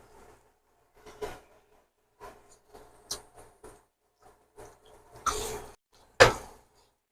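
Kitchen handling noises: scattered small knocks and clatters of cookware and cupboards, a brief rustling scrape about five seconds in, then a sharp loud clunk a second later.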